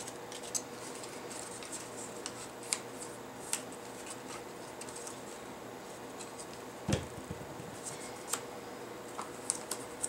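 Light scratchy strokes and ticks of a paintbrush spreading Mod Podge glue and of paper being handled and pressed onto a canvas. About seven seconds in there is one louder knock, the plastic Mod Podge squeeze bottle being set down on the table. A faint steady hum runs underneath.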